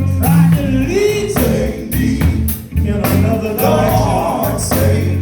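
Gospel song with singing over electric guitar, bass and a drum kit keeping a steady beat.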